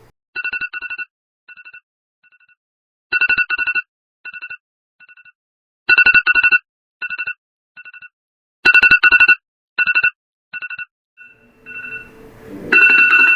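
Electronic alarm clock alarm sounding. It plays groups of quick two-pitch beeps that repeat about every three seconds and grow louder with each round. Near the end a louder, jumbled sound joins the beeps.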